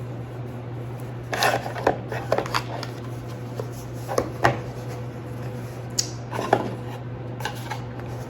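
Scattered taps, scrapes and rustles of a cardboard shipping box being handled and opened, over a low steady hum.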